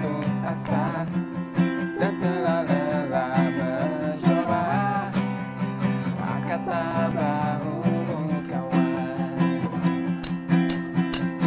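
Acoustic guitar strummed in a steady rhythm, with a wavering wordless vocal melody sung over it; sharp rhythmic hits join in near the end.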